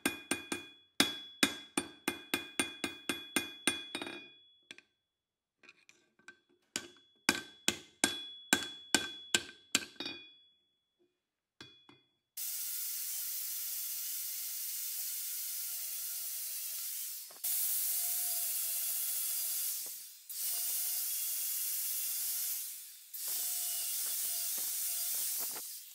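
Hand hammer striking red-hot leaf spring steel on an anvil, about three to four blows a second with the anvil ringing, in two runs over the first ten seconds. Then an angle grinder with a Tiger Paw flap disc runs steadily sanding the steel, breaking off three times.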